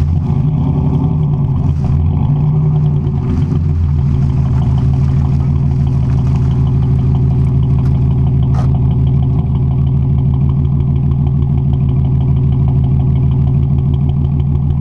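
Datsun 240Z engine and exhaust idling, with two short throttle blips in the first few seconds, then settling to a steady idle.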